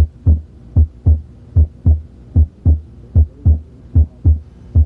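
Heart sounds heard through the diaphragm of a stethoscope at the lower left sternal border: a regular lub-dub, S1 followed by S2, at about 75 beats a minute.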